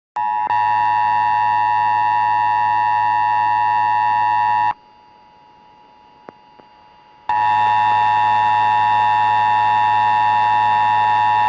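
Emergency Alert System two-tone attention signal: a steady, harsh alarm tone that sounds in two stretches of about five seconds each, with a short gap between them holding only a faint tone and a couple of clicks. It is the alert tone that comes before a National Weather Service flash flood warning message.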